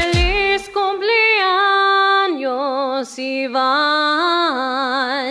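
Background song: the drum beat stops at the start and a lone voice sings long held notes with vibrato, stepping down in pitch.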